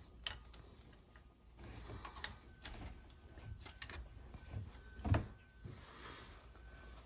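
Faint clicks and rubbing of a new oil filter being screwed on hand-tight in a jet ski's engine bay, with one louder knock about five seconds in.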